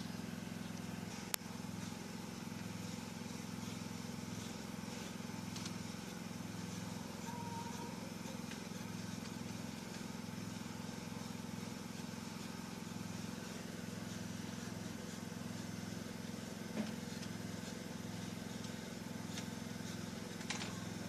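Steady low machine hum with a faint hiss, broken by three short sharp clicks: about a second in, about two-thirds of the way through, and near the end.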